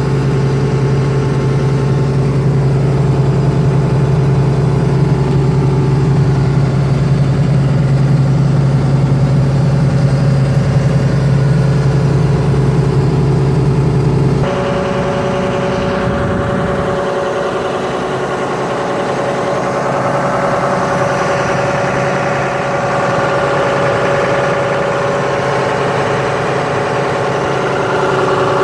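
Doosan Solar 140LC-V excavator's diesel engine idling steadily. About halfway through the sound shifts abruptly: the deep low drone falls away and a higher, steady whine comes forward, heard close to the open hydraulic pump compartment.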